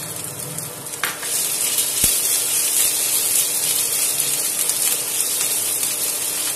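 Chopped garlic and ginger with cumin seeds sizzling in hot oil in a nonstick kadhai as they are stirred with a silicone spatula. The sizzle grows louder about a second in, with a light knock near two seconds.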